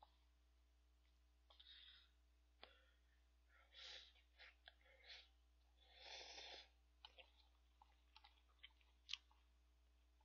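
Faint eating noises from someone eating cup ramen with rice using chopsticks: a few short slurps and breaths, about a second to two seconds apart, with scattered soft clicks of mouth and chopsticks.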